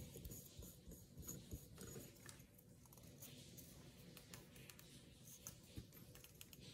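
Near silence, with faint scattered taps and rustles of hands handling a small paper-covered glass bottle.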